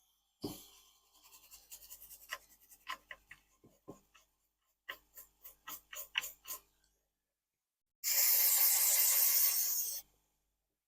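Brush scrubbing flux residue off an ECU circuit board around a freshly soldered MOSFET: irregular scratchy strokes, then a quicker run of about eight strokes. About eight seconds in, a loud steady hiss lasts about two seconds.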